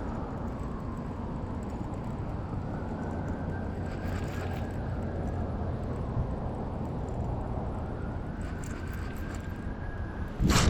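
Steady low rumble with a faint, slowly wavering high whine, like a boat's electric trolling motor running. A sudden loud burst of noise near the end.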